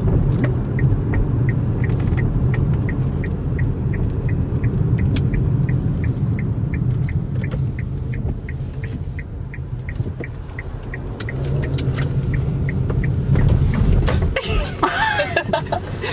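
Car turn-signal indicator ticking steadily, about three to four ticks a second, over the low rumble of the car's engine and road noise inside the cabin; the ticking stops near the end, followed by a short burst of noise.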